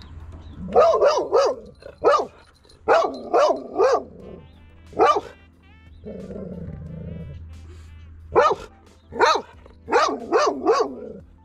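Golden retriever barking in bursts of one to four sharp barks, with a low growl about six seconds in. She is barking at a bronze buffalo statue that she takes for a threat.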